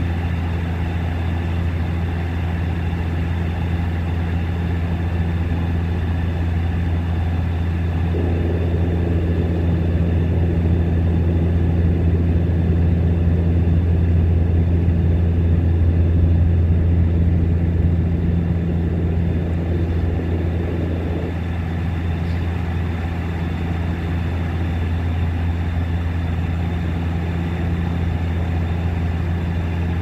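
Steady low drone of a Bombardier Q400 turboprop's propellers heard inside the cabin, one deep hum with a fainter higher hum above it. A rushing noise swells from about eight seconds in and drops back about twenty-one seconds in.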